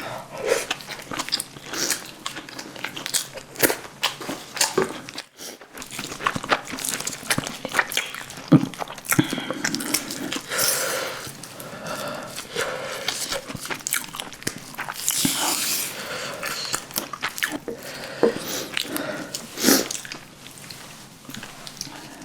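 Close-miked eating sounds: a person chewing and biting into crunchy food, with many sharp, irregular crunches and wet mouth clicks and a brief pause about five seconds in.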